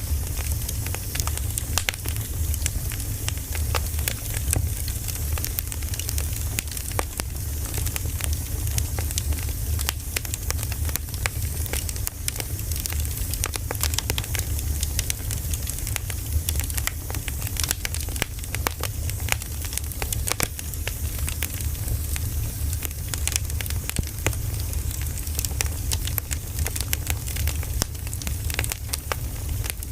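Firewood burning in an open fire, crackling and popping in dense, irregular snaps, over a steady low rumble.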